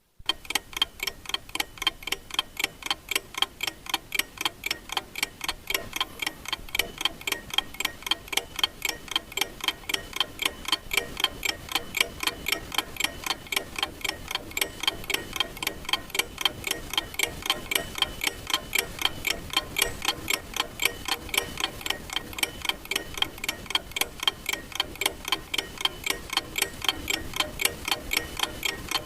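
Clock ticking: a rapid, even run of sharp ticks, several a second.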